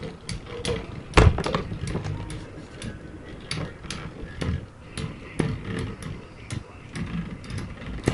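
Two Beyblade spinning tops clashing in a plastic Beystadium: irregular sharp clacks as they collide, the loudest about a second in, over a low rattle of the spinning tops on the plastic floor.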